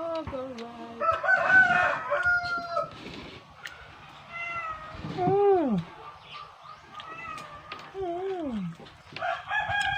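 A cat meowing, long calls that fall in pitch, about three times, while a rooster crows about a second in and again near the end.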